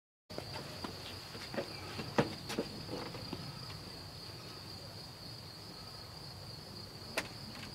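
Insects trilling in one steady, unbroken high-pitched tone. Footsteps on paving and stone steps click several times in the first few seconds, and there is one sharp click near the end.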